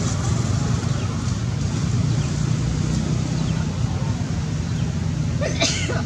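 Steady low rumble, like a running engine, with one short, high squeal that bends in pitch near the end.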